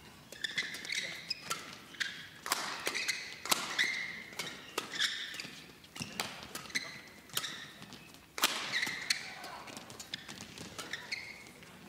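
Badminton rally: racket strings striking the shuttlecock with sharp cracks, roughly once a second, the hardest hit about two thirds of the way through. Between the hits, shoes squeak briefly on the court mat as the players lunge and turn.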